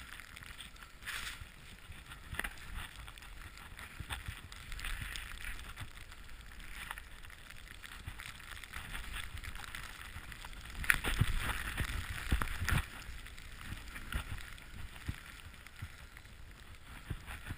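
Snowboard riding through deep powder snow: a soft, steady hiss of the board in the snow with scattered bumps and knocks. The knocks come thickest and loudest about two thirds of the way through.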